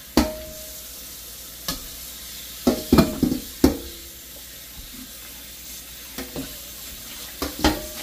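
Tap water running into a metal wok in a stainless steel sink while the wok is rinsed and turned, with several sharp clanks as the wok knocks against the sink, each with a short metallic ring; the loudest come about three to four seconds in.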